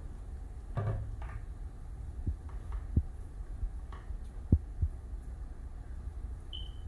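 Plastic pump sprayer tank being handled, with a few irregular dull knocks as parts are worked into its neck, over a steady low hum.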